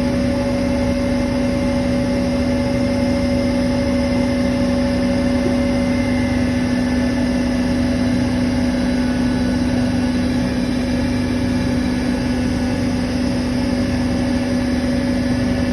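Bitzer refrigeration compressor running steadily, a loud constant machine hum with a strong low tone and no change in pitch or level.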